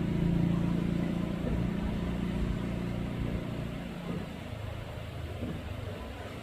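An engine running at a steady speed. It starts loud and fades over about four seconds to a lower steady hum.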